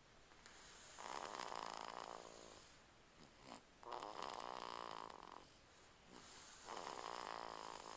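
Snoring: three long, even snores about three seconds apart, each lasting over a second.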